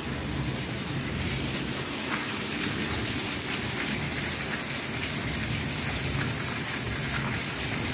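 Heavy rain falling steadily on a wet concrete courtyard.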